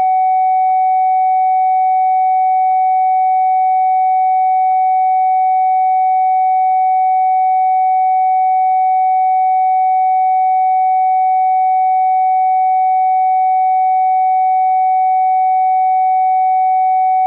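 Steady, unchanging synthesized sine test tone of medium-high pitch, played as a phone speaker diagnostic signal for listening for distortion or rattling.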